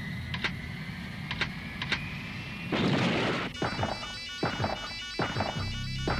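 Electronic sound effects of a mecha cockpit and its machinery: a steady electronic drone with rapid beeping and sharp mechanical clicks, a burst of hissing about three seconds in, then a series of quick falling whines.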